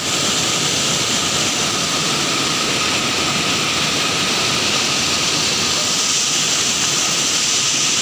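Steady, loud roar of a waterfall: white water pouring and churning over rocks, heard close up.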